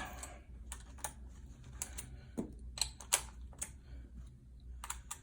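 Irregular light clicks and taps of hand tools and metal parts being handled, as an extender bit is fitted to a screwdriver or drill, about a dozen sharp clicks.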